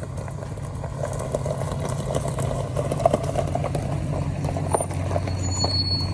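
A boat's motor running steadily on the water, a low, even hum with scattered light clicks over it.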